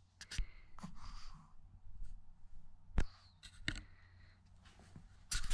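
Pug puppy chewing and mouthing a plush hedgehog toy: soft rustling with a few sharp clicks, the loudest about three seconds in.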